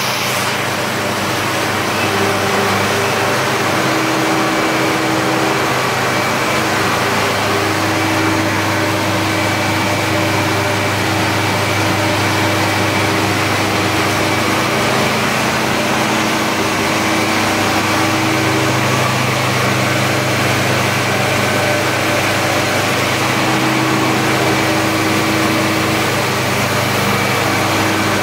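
Olive oil mill machinery running continuously: decanter centrifuges, separators and pumps together give a steady hum with several steady tones over a dense noise.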